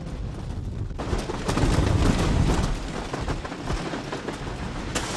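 Blue Streak wooden roller coaster train clattering and rattling over its wooden track at speed. The racket comes in suddenly about a second in and is loudest soon after.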